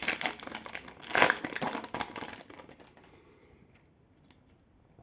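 Foil wrapper of a Panini Flux basketball card pack crinkling as it is torn open, loudest about a second in and fading after about three seconds. A few faint ticks follow as the cards are handled.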